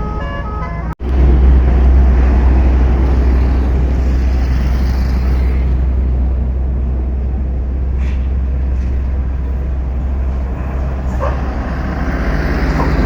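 The tail end of a telolet bus horn tune, several pitched tones changing step by step, breaks off about a second in. Then a tour bus's diesel engine runs close by with a steady low rumble, under general traffic noise.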